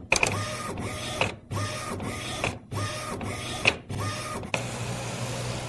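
Thermal label printer running, its motor whining in repeated runs of about half a second with short breaks between, as it feeds and prints labels. The last run near the end is longer.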